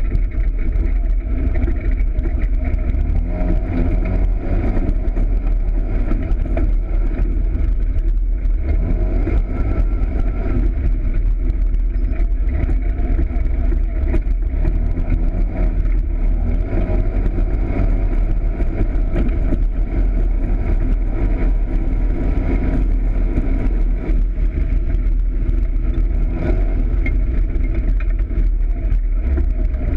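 Polaris RZR side-by-side's engine running under way, its pitch rising and falling again and again as it accelerates and eases off.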